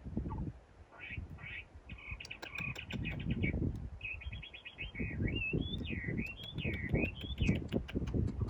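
A bird singing: a few short chirps, then rapid trills and a song that sweeps up and down in pitch, ending shortly before the end. Under it, irregular low thumps and rustling.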